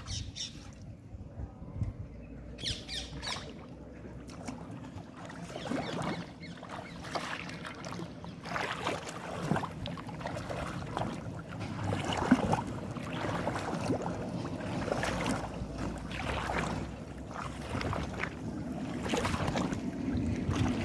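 Shallow water splashing and sloshing as someone wades and gropes through it by hand, in many short, irregular splashes that grow busier after the first few seconds.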